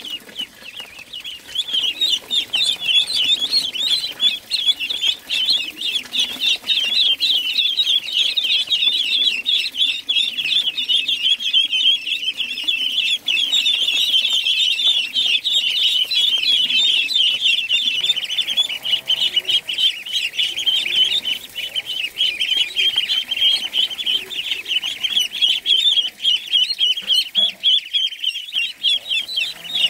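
A flock of goslings peeping continuously, many high, rapid cheeps overlapping. The chorus swells about a second in and stays loud throughout.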